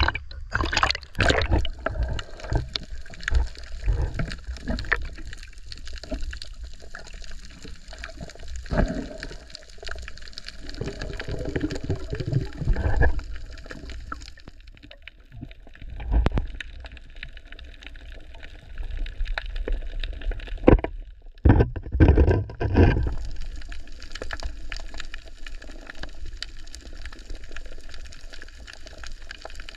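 Water splashing and gurgling against a small boat, with irregular bumps and knocks, as a bubo fish trap is set into the water.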